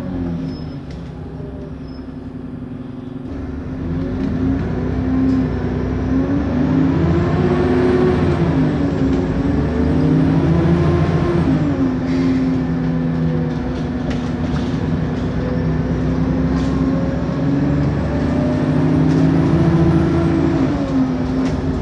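Bus diesel engine pulling away and accelerating through the gears: its note dips low for the first few seconds, then climbs, drops back at each gear change (about 8, 12 and 21 seconds in), and climbs again. A high turbocharger whine rises with the engine each time and falls away when it drops.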